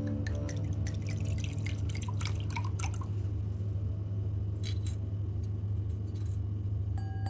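Wine glugging from a bottle into a wine glass with small clinks of glass, then a few light clinks of a stirrer against the glass, over a steady low hum.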